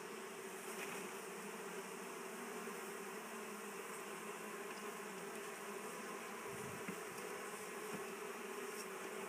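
A colony of honeybees buzzing steadily from an opened top bar hive, a continuous hum of many wings at once.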